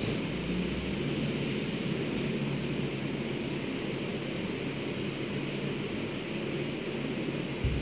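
Steady droning background noise with a low hum, and one dull thump near the end.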